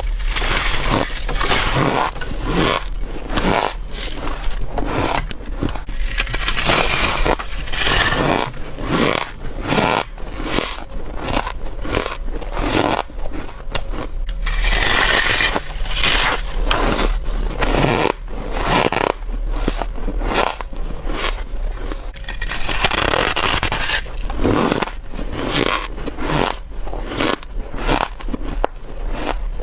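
Crunchy, squeaky freezer frost being bitten and chewed, one crackling crunch after another with no pause.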